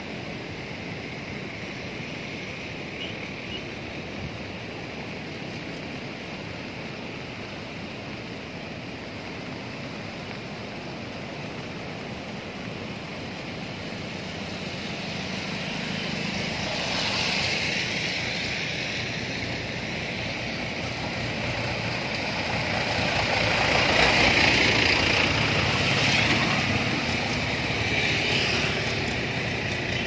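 Rush of a swollen, fast-flowing flood river, heard as a steady noise. From about halfway through, motor vehicles pass on the bridge in several rising and falling swells, the loudest a little past two-thirds of the way in.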